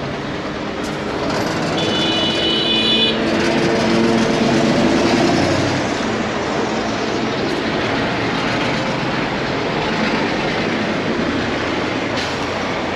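A tram passing close by on a city street: a loud rumble of wheels on rails and a motor hum that swells over the first few seconds, with a brief high squeal of the wheels about two seconds in.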